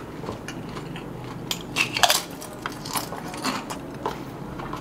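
Scattered small clicks and crackles of eating and handling snacks at a table, the loudest bunched a little before the middle.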